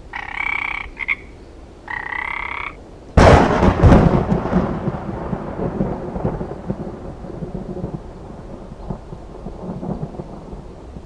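A frog croaking twice, each call just under a second long, then about three seconds in a sudden clap of thunder that rumbles on and slowly fades.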